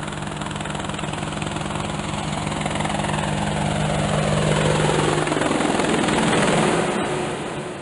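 Helicopter flying past: a rapid rotor beat with a steady low engine tone, growing louder and shifting in pitch as it passes, then fading away near the end.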